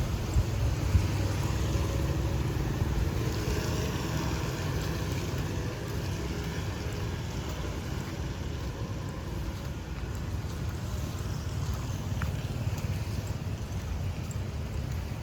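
Street traffic noise with vehicle engines passing, under a heavy low rumble of wind buffeting the microphone. Two brief thumps come about a second in.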